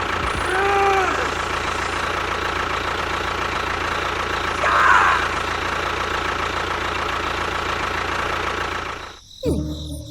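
A vehicle engine running steadily, with two short voice-like calls over it, one about half a second in and one near the middle. The engine sound cuts off suddenly about nine seconds in.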